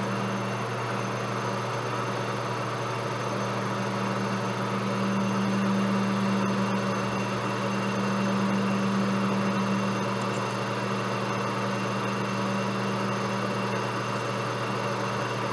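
Large JET metal lathe running, its chuck spinning a steel sleeve, with a steady hum that swells slightly in the middle.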